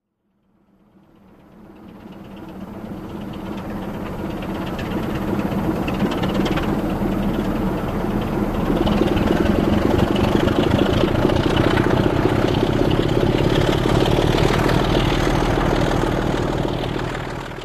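Steam locomotive running at speed, a fast even rhythm over a steady low hum. It fades up from silence over the first several seconds, then holds loud.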